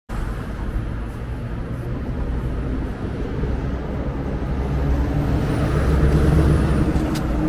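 Road traffic on a city street: a steady low rumble of passing cars that swells louder around six seconds in.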